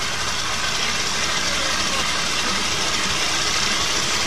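Outboard motor running steadily with its lower unit in a drum of water, the propeller churning the water. The cooling-water tell-tale is flowing, a sign that the water-pump impeller is pumping.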